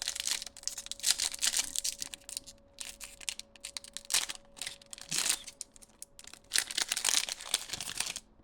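Foil Pokémon TCG booster pack wrapper crinkling and tearing as it is handled and opened, in irregular bursts.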